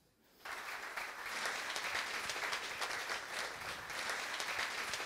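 Audience applauding, beginning about half a second in as a dense, even patter of many hands clapping.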